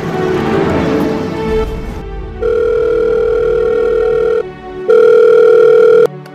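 Desk telephone ringing: two long, steady electronic rings of about two seconds each, half a second apart, starting a little after two seconds in and cutting off sharply. Background music plays just before the rings.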